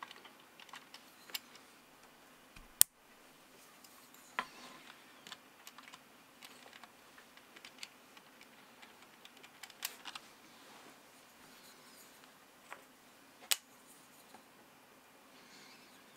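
Scattered small clicks and ticks of metal tweezers and a lube brush knocking against a mechanical keyboard's plastic stabilizer housing. One sharp click about three seconds in is the loudest, with another a little after halfway.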